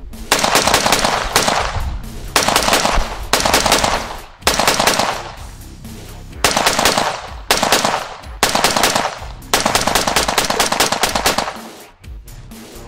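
AR-15 rifle in .223/5.56 with an Aeroknox AE01 muzzle brake, fired in fast strings of shots, with a pause of about a second near the middle.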